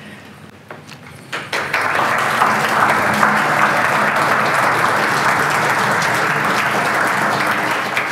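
Audience applauding: a few scattered claps at first, swelling about a second and a half in into steady applause.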